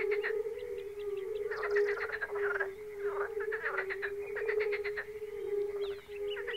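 Chorus of many European fire-bellied toads (Bombina bombina), their low 'oop' calls overlapping into a steady pulsing hum. Repeated bursts of faster, higher rattling calls sound over it.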